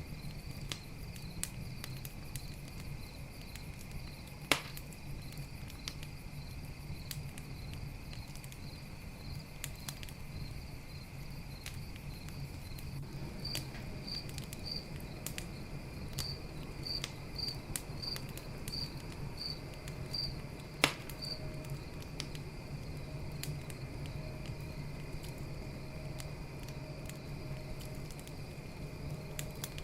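Campfire crackling with scattered small clicks and two louder pops, one a few seconds in and one about two-thirds through, over a steady trilling of crickets with a run of evenly spaced chirps in the middle.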